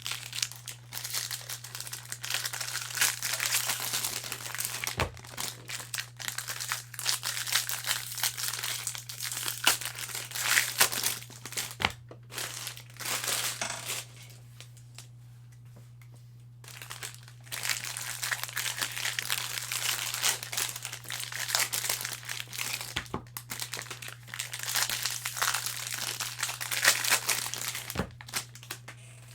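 Foil wrappers of trading-card packs crinkling and tearing as packs are opened and the cards handled, in irregular bursts with a quiet pause about halfway. A steady low hum runs underneath.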